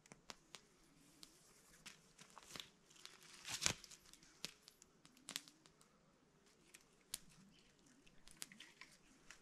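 Near silence with faint, scattered rustles and small clicks of 550 paracord and sticks being handled while a shelter's ridge pole is tied up. The loudest rustle comes about three and a half seconds in.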